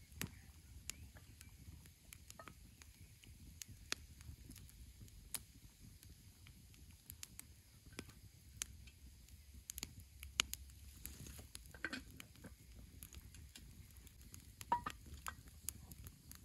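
Wood campfire crackling, with irregular sharp pops and snaps, a few coming in quick clusters about two-thirds in and again near the end.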